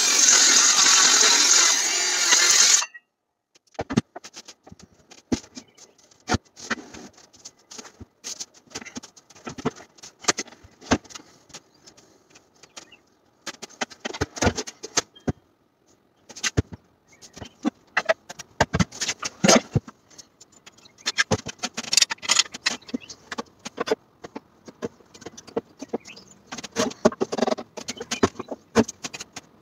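A circular saw runs steadily for about three seconds and then cuts off suddenly. Irregular knocks and clicks follow as tools and wooden panels are handled.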